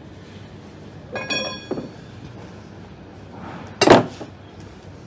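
Chrome steel bars of a dumbbell and barbell set clinking and knocking as they are lifted out of their plastic carry case: a ringing metal clink a little over a second in, then a single louder knock near four seconds.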